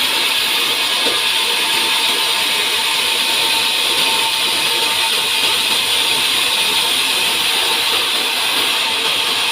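Sawmill saw running steadily through a pine log, a continuous even whine-and-hiss of machinery with no breaks.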